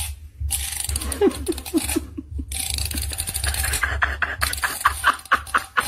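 Close-up sounds of a cat licking and chewing at a small plastic object held to its mouth: a quick series of wet clicks, about four or five a second.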